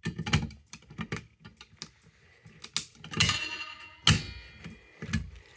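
Irregular clicks, taps and knocks of hard equipment being handled, with two louder metallic clatters that ring briefly about three and four seconds in.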